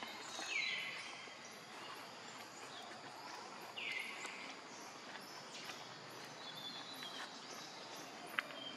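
Two short, high animal calls about three seconds apart, each dropping quickly in pitch and then holding steady, over faint outdoor chirping. A sharp click near the end.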